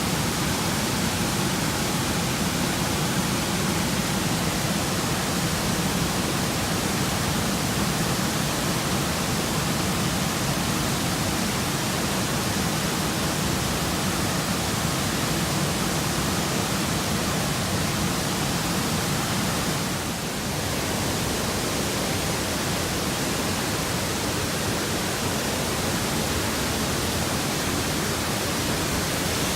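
Waterfall: a steady rush of falling water with a slight, brief dip in level about two-thirds of the way through.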